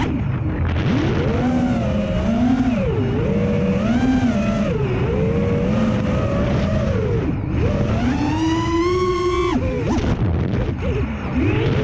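Brushless motors of an FPV quadcopter whining, their pitch sweeping up and down continually with the throttle, with a brief dip about ten seconds in.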